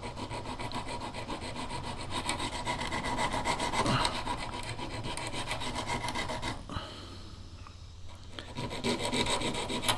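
Small hand file rasping along the edges of a steel four-blade broadhead in repeated short strokes. It stops for a moment about two-thirds through and then starts again.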